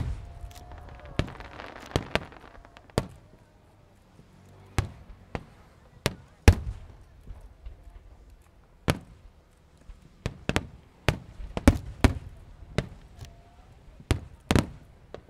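Fireworks bursting: a run of sharp, irregularly spaced bangs, some coming in quick clusters, the loudest about six and a half seconds in.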